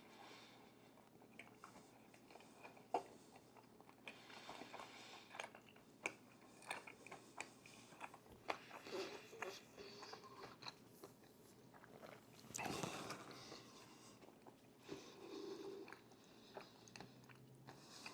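Close-miked eating: a person biting and chewing food, with many small sharp crunches and mouth clicks and a louder crunchy stretch about two-thirds of the way in.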